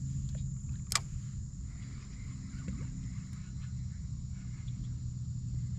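A small motor hums steadily and low, with a thin steady high whine above it. One sharp click comes about a second in.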